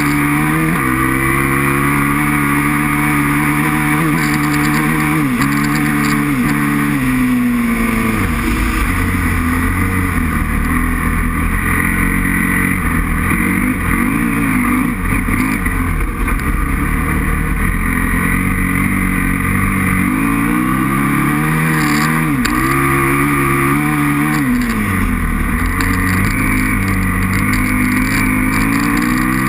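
Aprilia RXV 550 V-twin motorcycle engine being ridden hard, revving up and down. Its pitch climbs, then falls away twice where the throttle comes off, and rises again each time.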